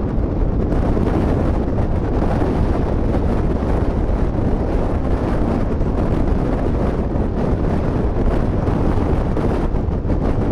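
Strong wind blowing across the microphone: a loud, steady rush with no breaks, heaviest in the low end.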